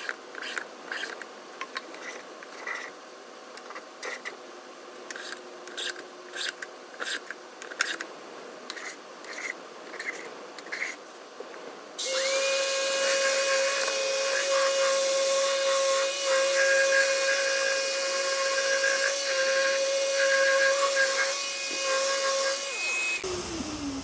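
For about twelve seconds, irregular scraping strokes of a hand tool on the wooden edge of a beehive box. Then an electric random orbital sander runs steadily on the box with a constant whine, and stops about a second before the end.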